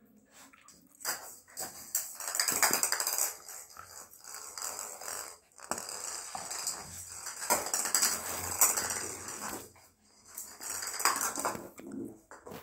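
Lhasa Apso puppy playing with a small plastic ball on a hard marble floor: scuffling, rattling and clattering in bursts of a second or two.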